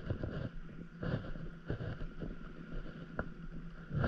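Wind buffeting the microphone in an uneven low rumble, with a few faint small clicks.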